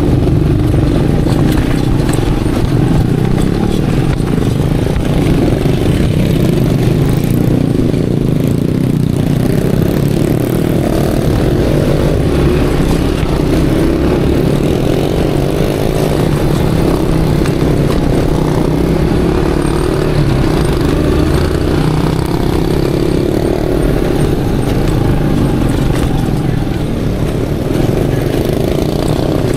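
Aveta Ranger Max motorcycle's engine running steadily as the bike is ridden, its pitch rising and falling a little.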